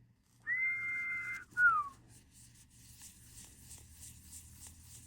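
A person whistling two notes: a long, steady high note, then a short one that falls in pitch. Faint rustling follows.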